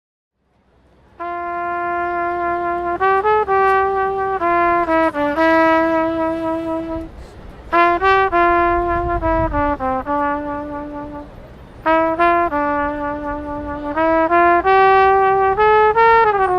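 Unaccompanied trumpet playing a slow melody of held notes that step up and down, in three phrases with short breaks between them.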